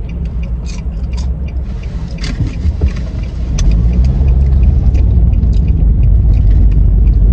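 Road and engine rumble inside a moving car's cabin, a steady low drone that grows louder about halfway through as the car picks up speed, with a few light clicks in the first couple of seconds.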